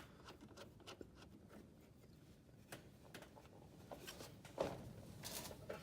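Faint scattered clicks and small knocks of hands handling metal fittings and parts, with a sharper click a little past halfway.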